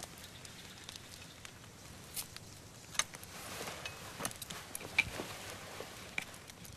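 Faint scattered clicks and soft rustling as a wooden curle, the Albanian folk shawm, is unwrapped from its cloth and handled, with a few sharper ticks in the middle.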